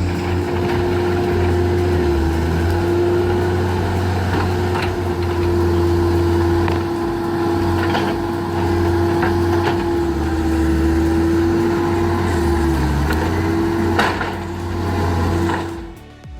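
Heavy machine engine running steadily under a constant whine, with scattered sharp cracks of wood splintering. The sound drops away suddenly near the end.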